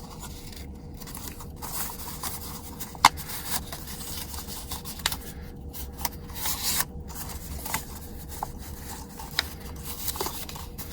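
Paper being folded and creased by hand: irregular rustling and rubbing with scattered short clicks, the sharpest about three seconds in.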